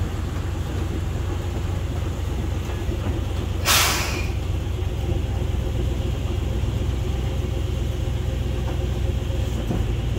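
Small Plymouth gas locomotive with a Chevy 350 V8 engine running steadily as it rolls slowly along the track. About four seconds in there is a short, loud hiss.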